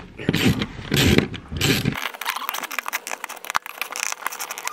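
Hand ratchet clicking as it backs out the bolts of an oil pump: back-and-forth strokes for about two seconds, then a faster run of sharp clicks.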